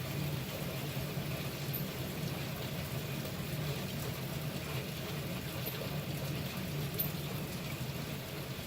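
Heavy rain falling steadily in a windy storm, with a steady low hum underneath.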